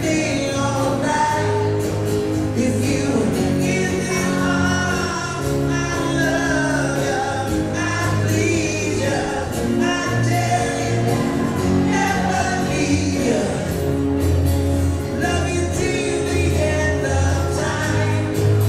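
Live acoustic band music with singing, steady throughout: acoustic guitar and violin under the vocals, heard in a large hall.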